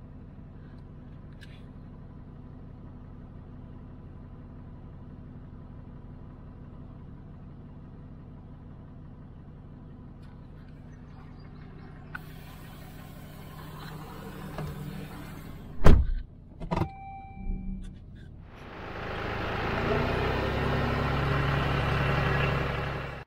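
Pickup truck engine idling with a steady low hum, heard from inside the cab. Midway the door opens and a few knocks follow, the loudest a sharp thump. Then a John Deere loader tractor's engine starts running loudly and keeps going to the end.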